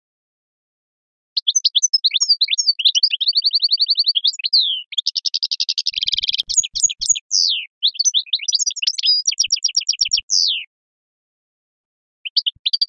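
European goldfinch singing in the Algerian 'sharqi' style: a long, varied phrase of rapid trills and twittering notes that starts about a second in and stops after about ten seconds, with a few more notes near the end.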